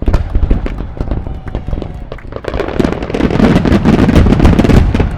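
Aerial fireworks display: a rapid barrage of shells bursting in quick succession, with many sharp bangs and crackling. It starts suddenly, grows loudest about three to four and a half seconds in, and eases off near the end.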